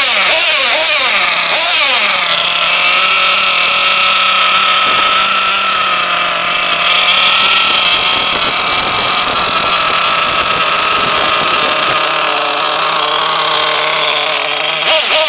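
SH .31 gasoline engine in a 1/8-scale RC truggy, a small two-stroke, running. Its pitch rises and falls briefly in the first couple of seconds, then it settles into a steady idle.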